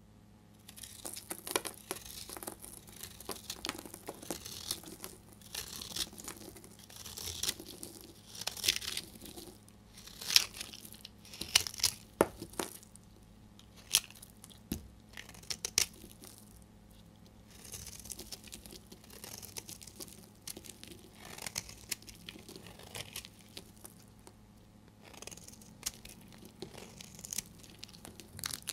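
A snap-off utility knife blade carving a bar of dry soap: repeated scraping strokes as slices and shavings are pared off, with a few sharp clicks around the middle.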